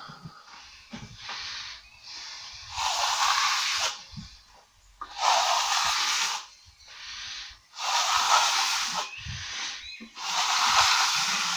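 A wet plasterer's brush swept over fresh skim plaster in four strokes, each about a second long. This wets the surface so it can be trowelled smooth.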